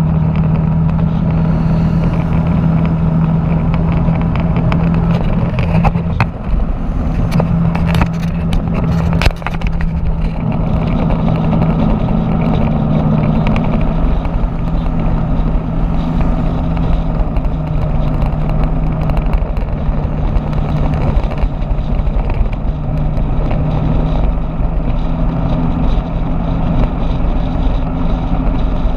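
Motorbike engine running with a steady hum at cruising speed, mixed with wind and road noise rushing past the bike-mounted camera's microphone. A few sharp clicks come between about seven and ten seconds in.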